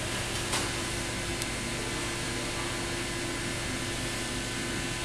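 Steady mechanical hum and hiss like a ventilation fan, with two faint clicks about half a second and a second and a half in.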